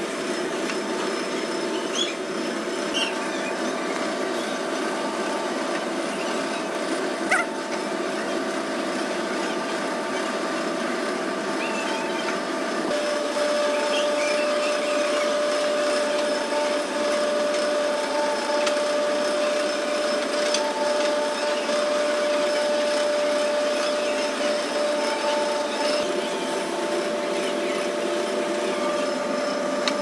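Steady machinery hum with a held tone that grows a little louder about halfway through, and a few light knocks in the first several seconds.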